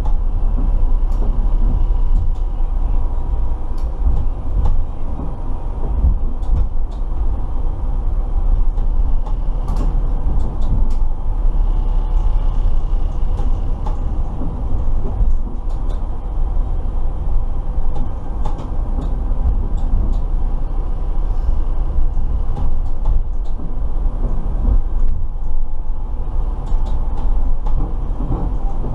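Inside the driver's cab of a T12 tram-train running along the track: a steady low rumble with a few faint steady hums above it and scattered light clicks.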